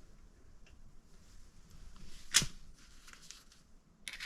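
A screwdriver and loose screws being handled: one sharp click about halfway through, then a quick run of small clicks near the end.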